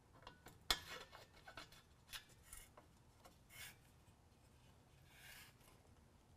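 Faint scraping and small metallic clicks of a 5/16 Allen wrench turning the clamp bolt on an exhaust tip, with one sharper click about three-quarters of a second in.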